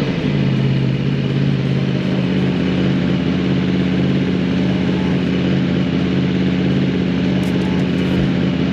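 Motorcycle engine running at steady revs, an even, unbroken engine note.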